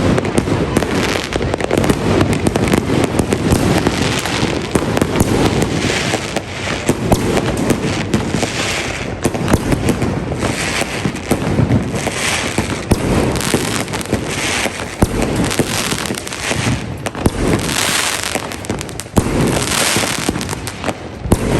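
A dense, unbroken barrage of fireworks: rapid bangs and crackling without a pause. From about a third of the way in, a hissing burst recurs every second or two.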